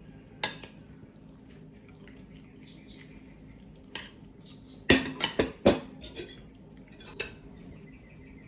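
Cutlery and dishes clinking: a few scattered clinks, with a quick run of louder clinks about five seconds in.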